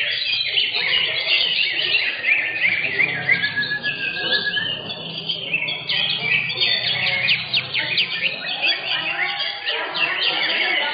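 Several cucak hijau (green leafbirds) singing at once in a dense, unbroken chorus of fast, overlapping chirps and short whistled glides.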